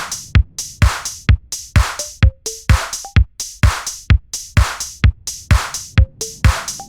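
Electronic dance track with a drum machine: a steady kick drum about twice a second, sharp percussion between the kicks, and short synth notes.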